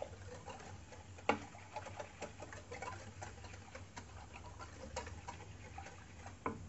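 Wire whisk clicking and scraping against the inside of a stainless steel pot as it stirs a milk mixture: a fast, irregular run of light clicks, with two louder knocks, about a second in and near the end.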